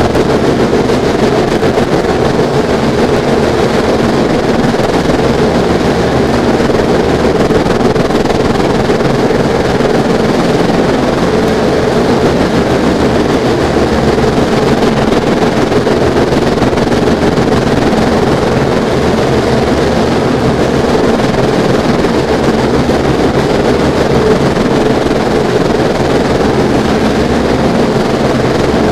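Heavy storm rain and wind on a wooden nest box, heard through its microphone as a loud, steady, unbroken rush.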